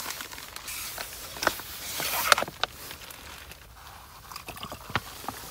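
Rustling and handling noises with a few sharp clicks and knocks, as of camping gear being moved about.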